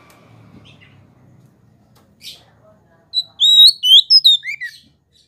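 Oriental magpie-robin (kacer) singing: a faint single call, then, about three seconds in, a loud burst of quick whistled notes that sweep up and down, lasting under two seconds.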